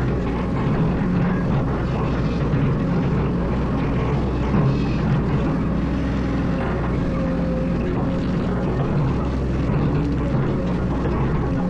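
Excavator's diesel engine running steadily, an even low drone with no sharp impacts.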